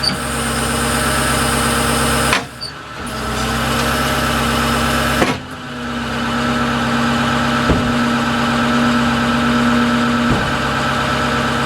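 Wrecker's PTO-driven hydraulic pump running as the wheel-lift jaws are operated. The noise drops briefly twice, and a steady whine holds from about halfway through until near the end, as the hydraulics work under load.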